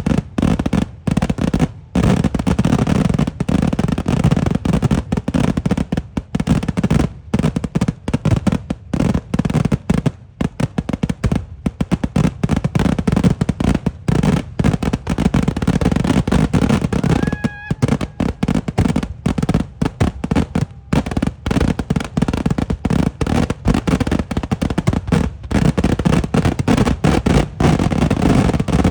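Kerala temple-festival eeduvedi fireworks: a dense, continuous barrage of loud explosions going off in rapid succession, with barely a gap between them. A brief high tone cuts through about two-thirds of the way in.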